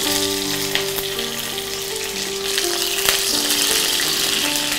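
Curry leaves and mustard seeds sizzling in hot coconut oil, with a few sharp pops through the steady sizzle.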